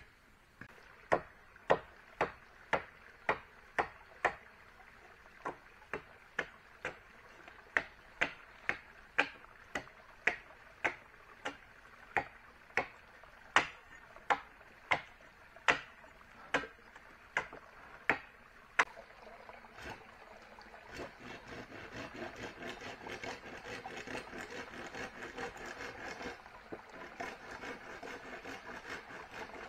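Some two dozen sharp strikes of a hand tool on wood, about one and a half a second, stopping about two-thirds of the way through. A steady rasping rub on wood follows.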